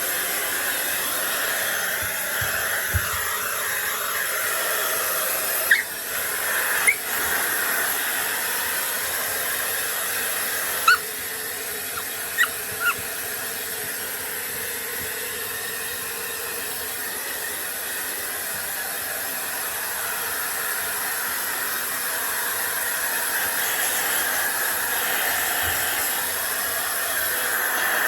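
Hair dryer blowing steadily with a high whine. A Papillon–Corgi mix dog gives about five short, sharp barks at it between about six and thirteen seconds in.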